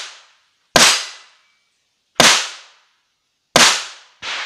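Gunshots from an IPSC stage, three loud sharp reports fired about a second and a half apart, each with a short decaying echo, then a fainter crack just before the end.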